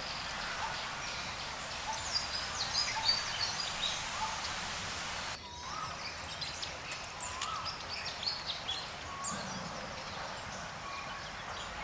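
Forest ambience: a steady hiss of background noise with many short, high bird chirps and calls scattered through it. The sound changes abruptly about five seconds in, as at an edit, and the chirping carries on after.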